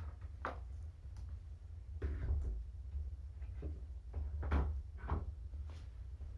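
Irregular soft knocks and thumps, about six of them, with the loudest a little past the middle, over a steady low hum.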